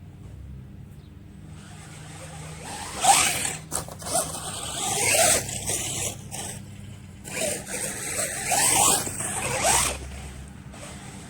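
Electric motor of a 3S-powered RC monster truck whining in several throttle bursts between about three and ten seconds in, its pitch rising and falling, over a hissy, scraping noise.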